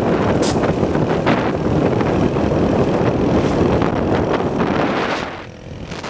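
Loud wind buffeting the microphone and road and engine noise from a vehicle moving at speed along the road. It fades down near the end.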